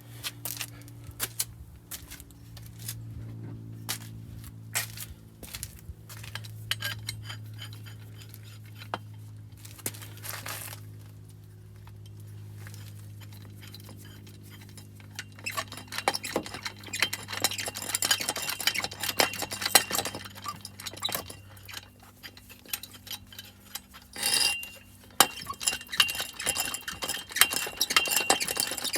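Metal clinking and clicking as the porta-power hydraulic ram and its blocks are worked against the bus bumper, sparse at first and turning into dense rapid clicking about halfway through, over a steady low hum.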